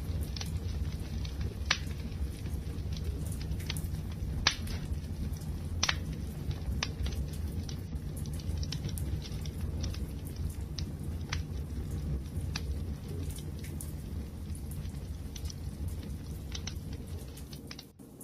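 Wood fire burning, a steady low rumble of flames with irregular sharp crackles and pops from the burning wood, a few of them louder.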